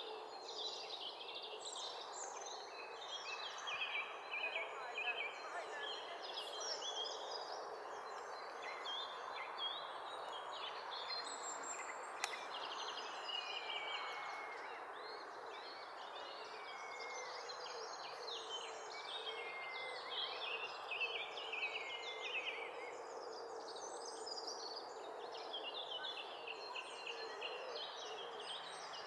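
Small songbirds singing in short, varied high phrases of chirps and falling notes, over a steady rushing background noise.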